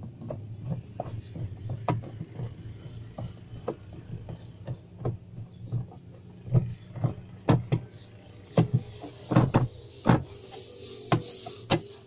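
Screwdriver driving the centre screw of a washing machine's plastic pulsator: irregular clicks and knocks from the tool and screw, over a steady low hum.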